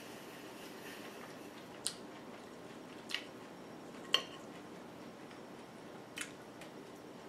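Metal fork clinking against a ceramic dinner plate in about five short, sharp clicks, the loudest about four seconds in as broccoli is speared.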